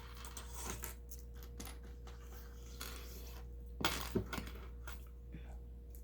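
Small plastic LEGO pieces clicking and rattling as they are handled and pressed together, with a louder clack about four seconds in.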